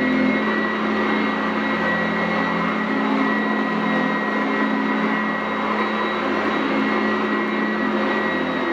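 Sanitaire SC899F commercial upright vacuum running steadily on carpet: a constant motor whine over the rush of air.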